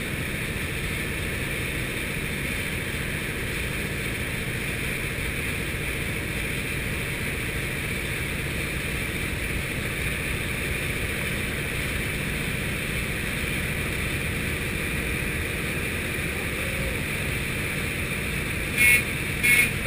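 Steady drone of a propeller plane's piston engine with rushing air, heard inside the cabin. Two short, loud sounds come close together near the end.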